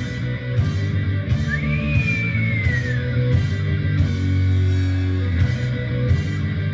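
Rock music with electric guitar, bass and drums on a steady beat. A high note glides up and then slowly falls about one and a half seconds in.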